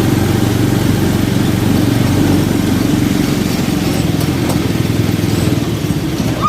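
Four-wheeler's engine running steadily under a light load while it pulls a towed mini Jeep.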